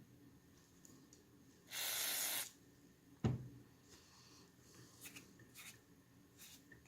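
A short hiss of spray, about two-thirds of a second long, during the cleaning of a 1911 pistol, then a single sharp knock about a second later, followed by faint rubbing and small clicks of the parts being handled.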